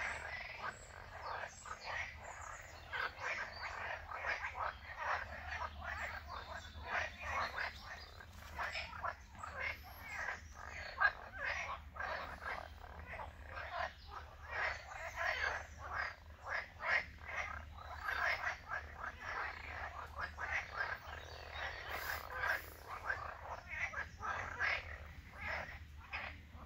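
A chorus of many frogs calling at once, a dense stream of short, rapid calls overlapping without a pause.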